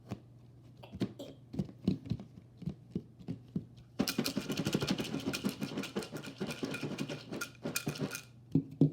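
Scattered knocks and clicks of handling, then popcorn shaken in a lidded bowl: a dense rattle for about four seconds, starting about four seconds in and stopping shortly before the end.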